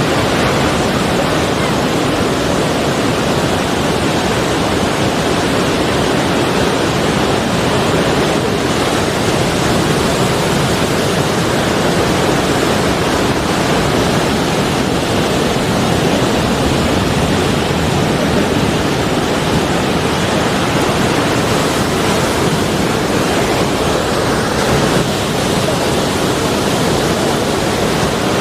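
Sea surf rushing as a steady, unbroken roar, with no separate waves rising and falling.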